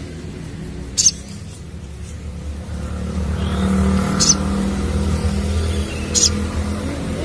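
Sogon (crimson sunbird) giving three short, sharp high chips about two to three seconds apart, over the low rumble of a vehicle engine that swells about halfway through.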